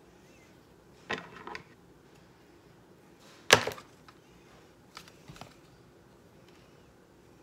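Toy packaging being worked open by hand, giving sharp clicks and knocks: a short cluster about a second in, one loud snap about three and a half seconds in, and a few softer clicks around five seconds.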